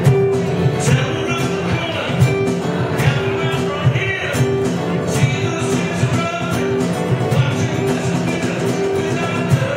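Live acoustic band music: strummed acoustic guitar over a steady cajon beat, with a male voice singing into a microphone.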